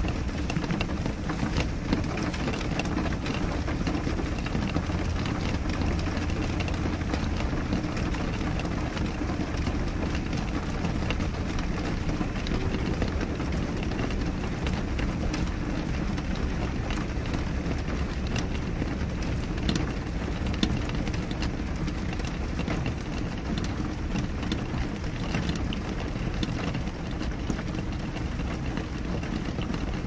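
Steady rain, with many small drops pattering on a window pane over a constant low rumble.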